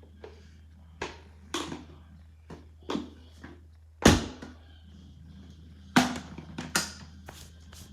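A series of irregular sharp knocks and crunching clatters, about six in all, the loudest about four seconds in, over a low steady hum.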